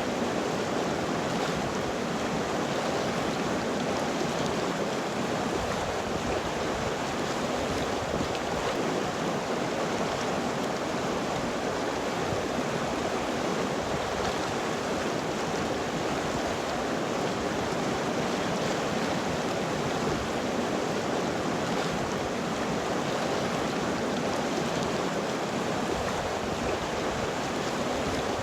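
River water flowing over rocks: a steady, even rush with no breaks or changes.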